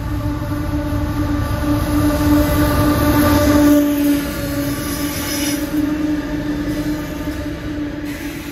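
Pacific National 93 class diesel-electric locomotives passing at speed, their engines giving a steady droning tone over the rumble of the train. The sound is loudest about halfway in, with a high-pitched hiss of wheels on the rails, then slowly fades as the train runs on.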